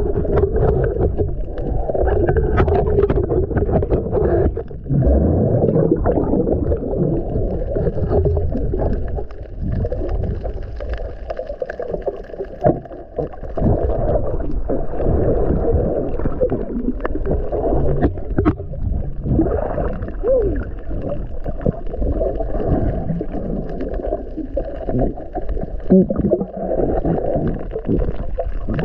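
Muffled underwater noise picked up by a camera in a waterproof housing: water moving and gurgling, with scattered small clicks and knocks.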